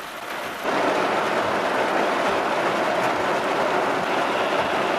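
Steady rushing noise heard inside a car in a heavy rainstorm, jumping suddenly louder less than a second in and then holding steady.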